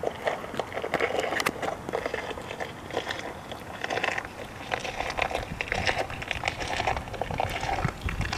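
Close rustling, crunching and scraping with many small irregular clicks: handling noise as a plastic toy figure is moved over mossy stone, close to the microphone.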